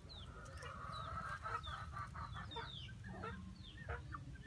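Backyard chickens clucking, with short, high, falling chirps repeated several times over the clucks.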